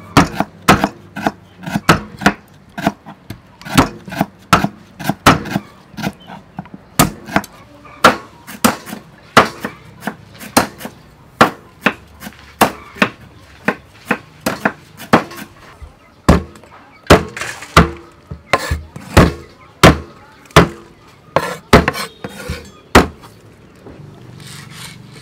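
A knife chopping raw chicken wings into pieces on a wooden chopping block: a long run of sharp, loud strikes at somewhat under two a second, stopping near the end.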